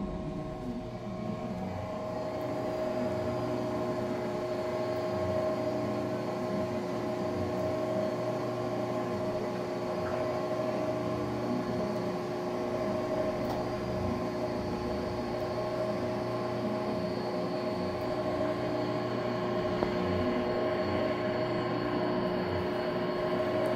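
Hollymatic 4000 mixer grinder running in mix only: its 2 hp mix motor turns the mixing paddles in the empty stainless steel hopper with a steady hum and a few held tones. The grind auger is pulled forward and is not turning.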